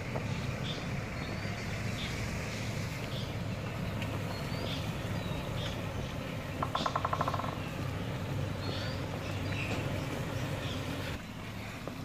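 Toyota Land Cruiser's 4700 cc V8 running with a steady low hum as the vehicle crawls slowly over a snowy track. About seven seconds in, a brief fast rattling trill stands out above it, and small high chirps come and go.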